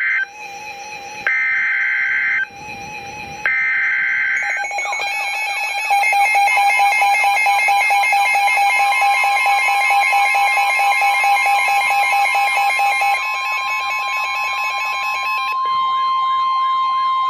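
Emergency Alert System activation on NOAA Weather Radio. First comes the SAME header's harsh digital data bursts: the tail of one, then two more about a second apart. From about four and a half seconds in, weather-alert receiver alarms beep and warble together. About nine seconds in, the steady 1050 Hz weather radio warning tone joins them.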